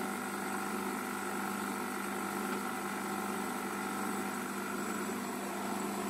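Refrigerant recovery machine running with a steady hum as it holds the system at a slight vacuum.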